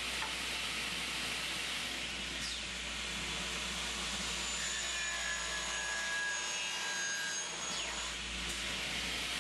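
Tekna TK133 automatic miter saw running and cutting solid copper bar: a steady hiss with thin whining tones from the middle of the cut until near the end.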